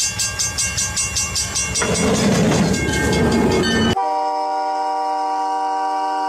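Snowplow train pushing through deep snow: a heavy train rumble pulsing rapidly, about four beats a second, with a rush of thrown snow building toward the middle. About four seconds in it cuts abruptly to a locomotive horn sounding a steady multi-note chord.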